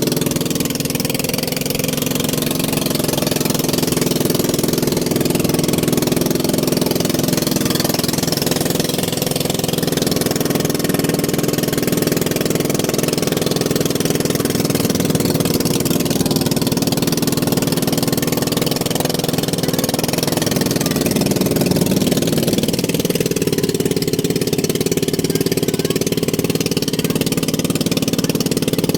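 An engine running steadily at an even speed, with no revving or change in pitch.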